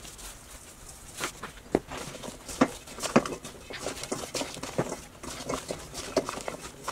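Gloved hands tossing raw sweet potato sticks coated in olive oil in a stainless steel bowl: irregular clicks and knocks of the sticks against each other and the bowl.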